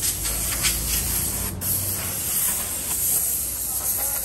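Compressed air hissing steadily from a hand-held air gun on a hose, with a brief break about one and a half seconds in.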